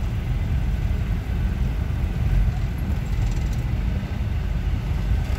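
Steady low rumble of a moving car: road and engine noise heard from inside the car.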